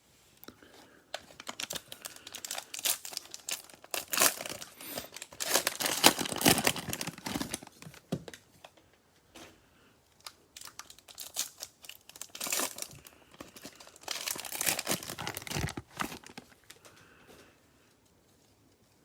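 Trading-card pack wrapper crinkling and tearing as it is opened, in two long bouts of rustling.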